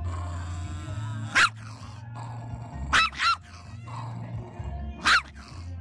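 A small dog barking: four sharp, high barks, one about a second and a half in, a quick pair near three seconds and one near five seconds, over background music with a steady low beat.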